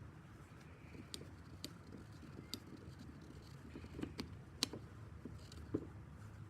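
Scattered light clicks and taps from handling a brake caliper and small tools, two sharper knocks near the end, over a low steady hum.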